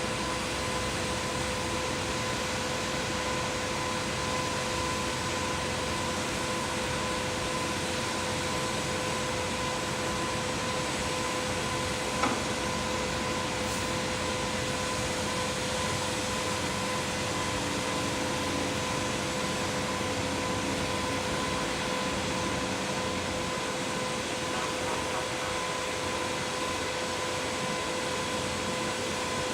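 Steady running machinery: an even mechanical noise with a constant whine over it and a single sharp click about twelve seconds in.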